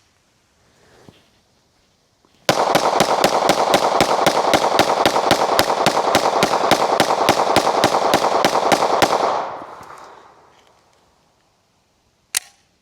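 Glock pistol fired in a fast, steady string of roughly thirty shots, about five a second, ending abruptly with the sound dying away after about a second. A single sharp click comes near the end.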